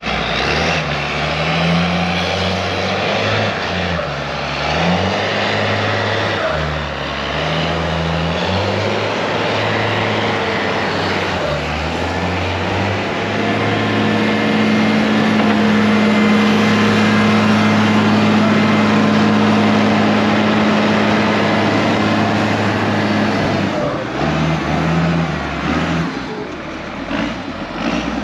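Four-wheel-drive vehicle's engine revving up and down several times, then held at high revs for about ten seconds before dropping back, as it is driven in four-low at a snowbank to force its way over.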